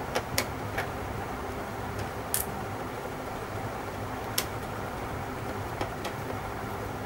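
Small screwdriver clicking and tapping on the plastic back of a wall clock as its screws are driven in: about seven sharp, scattered clicks over a steady low hum.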